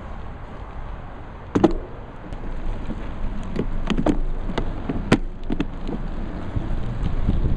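Mountain bike heard from a frame-mounted camera as the rider sets off: a sharp click about one and a half seconds in, then several more clicks and knocks from the cycling shoe on the clipless pedal. A low rumble grows as the bike starts to roll.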